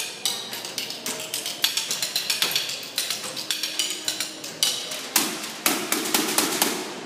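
Percussion ensemble playing a fast pattern of sharp, clicking strikes that builds into a denser, louder flurry about five seconds in, then stops abruptly.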